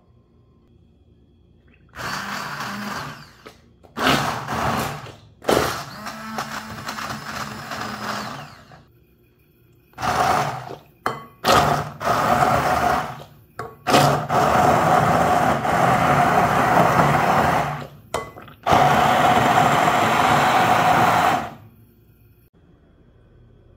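Immersion blender pureeing dates soaked in milk in a glass bowl. The motor starts about two seconds in and is pulsed on and off several times, then run in longer stretches of a few seconds with a steady whine. It stops a couple of seconds before the end.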